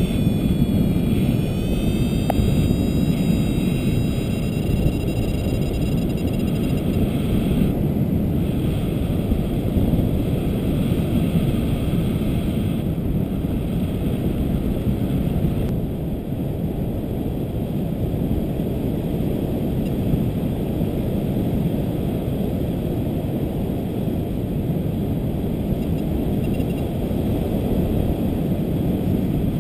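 Steady rush of wind over the microphone of a paraglider in flight, a low rumbling noise with no pauses. A faint thin high tone dips and then holds for about the first seven seconds before stopping.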